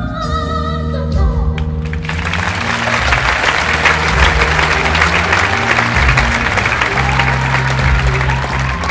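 Show music with a singing voice, then about two seconds in an audience starts applauding loudly, the clapping carrying on over the music.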